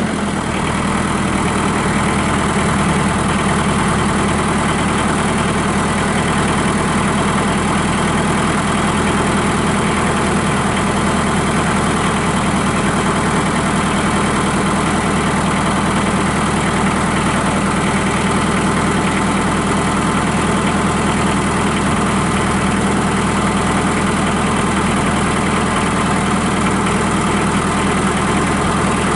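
Compact tractor's 50 horsepower Perkins diesel engine idling steadily, its pitch settling at the very start and then holding constant.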